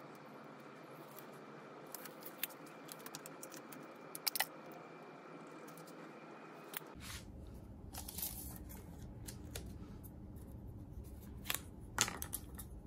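Faint handling sounds of measuring and marking wood: a steel tape measure's blade shifting and clicking against the board, with a few sharp clicks and light rubbing and scratching from the marking pencil.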